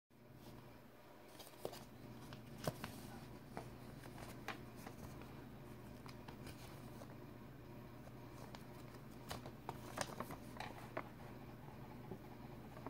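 A folded paper zine being handled and unfolded: scattered short crinkles and taps of paper, over a faint steady low hum.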